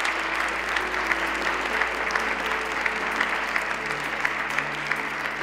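An audience applauding steadily after the winner is announced, with background music of held notes underneath.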